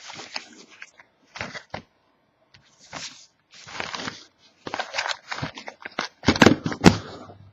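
Wrapping and cardboard of a sealed trading-card box being handled and opened: irregular rustling and crinkling, with a few louder knocks about six to seven seconds in.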